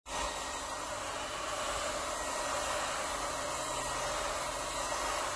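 Heat gun blowing a steady rush of hot air onto a phone's back cover, warming it to soften the adhesive before prying the cover off.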